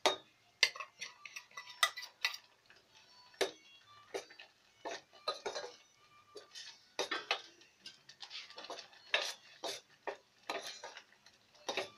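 Spoon stirring cashew paste in sugar syrup in a stainless steel pot, clinking and scraping against the pot's sides in irregular strokes, quicker and denser in the second half.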